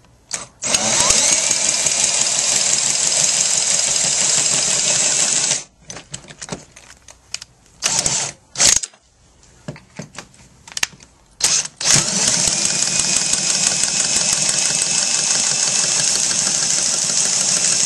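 Power drill spinning a pipe-cutter attachment around a pipe. It runs steadily for about five seconds, stops for several seconds of clicks and short bursts, then runs steadily again for the rest.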